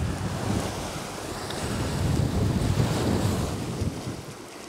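Wind buffeting the microphone in gusts over the sea washing against the shore rocks; the gusts ease near the end.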